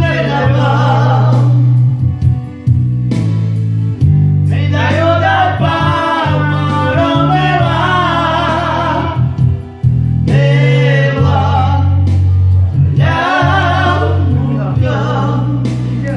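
A man sings live into a handheld microphone over the accompaniment of a Yamaha Tyros arranger keyboard, with a steady deep bass line under the voice. The voice comes in phrases separated by short pauses.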